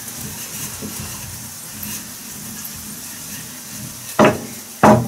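Katmer frying in oil in a pan on a gas stove, a quiet steady sizzle, with the rolling pin working dough on the counter. Two short, louder sounds come about four and five seconds in.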